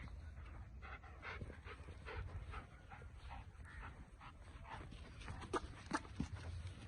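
A German shepherd panting quickly, about three breaths a second. A few sharp clicks come near the end.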